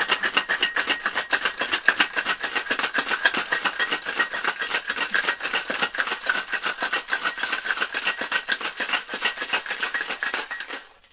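Ice cubes rattling hard inside a metal cocktail shaker tin as a shaken sour is shaken, about five strokes a second, stopping abruptly near the end.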